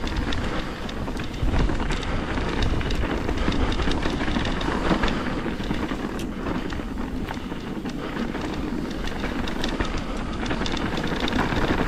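Mountain bike ridden down a rough trail: tyres rolling over dirt and rock under a constant rattle, with many quick clicks and knocks from the bike, and wind noise on the microphone.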